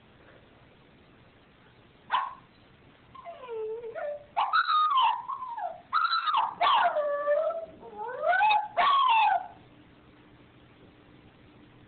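Small white dog crying: a short sharp call about two seconds in, then a run of high, howl-like whining calls that slide up and down in pitch, ending after about eight seconds.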